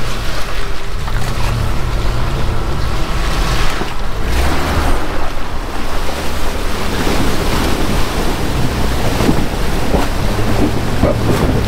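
Wind buffeting an unshielded camera microphone, over the steady low rumble of a vehicle engine.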